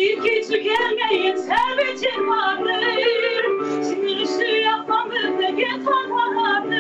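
A woman singing an Azerbaijani song with a wavering vibrato, accompanied by piano.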